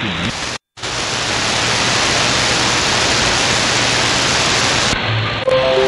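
Shortwave receiver static: a steady, even hiss from a software-defined radio tuned off the station onto an empty frequency, cut by a brief dropout within the first second. Near the end the audio narrows and music from the station starts to come through.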